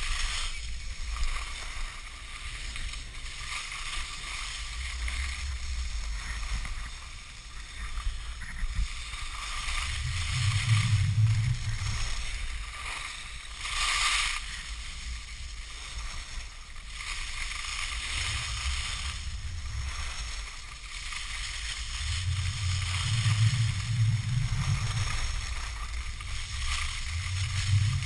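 Skis hissing and scraping over packed snow on a downhill run, heard from a GoPro on a ski pole, with wind buffeting the camera in low rumbling gusts that come and go. The scraping swells briefly about halfway through.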